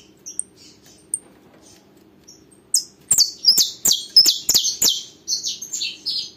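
Saffron finch singing in a cage: a couple of soft high notes, then from about three seconds in a fast run of loud, sharp, high chirps, many sliding downward.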